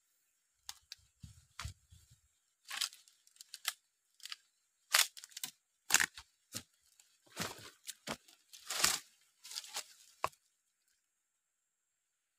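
Footsteps crunching through dry leaf litter and twigs, with rustling as legs and body brush past plants and fallen palm fronds: irregular crackles and snaps that stop about ten seconds in.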